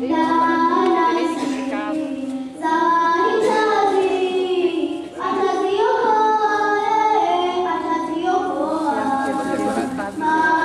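A group of schoolchildren singing a song together in long held phrases, with two short breaks between phrases.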